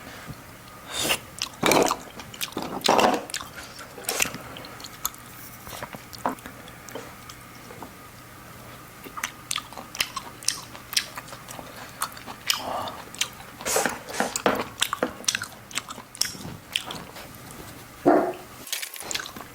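Eating steamed oysters: chewing, with short sharp clicks and knocks scattered through and a few louder bursts.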